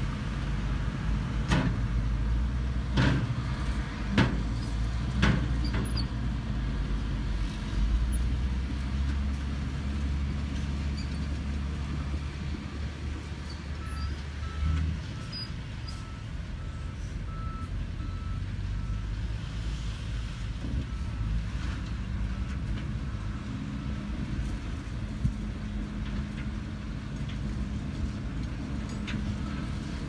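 Diesel dump truck engines running as the trucks tip their raised beds to unload dirt, with several sharp knocks in the first few seconds. The low engine rumble is heavy at first and eases about halfway through.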